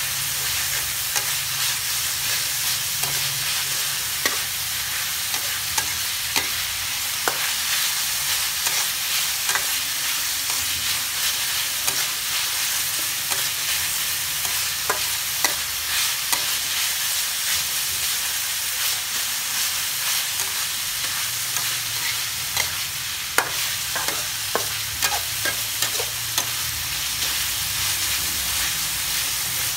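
Pork and sliced ginger sizzling steadily in a steel wok as they are stir-fried, with a metal spatula scraping and clinking against the pan in short sharp knocks, more often after about 22 seconds in.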